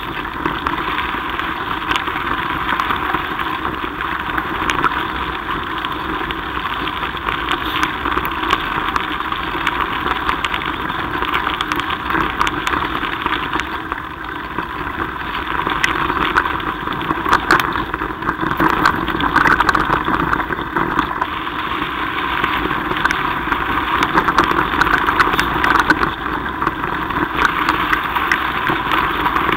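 Mountain bike riding down a rough dirt and gravel track, heard through the camera on the ride: a steady rumbling ride noise with frequent small clicks and rattles from the bumps.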